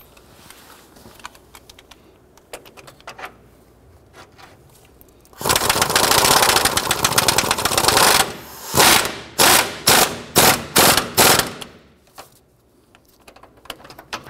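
Cordless impact wrench running a nut onto the upper control arm's front bolt: a few faint clicks, then about three seconds of steady rapid hammering, then about eight short bursts as it snugs the nut down.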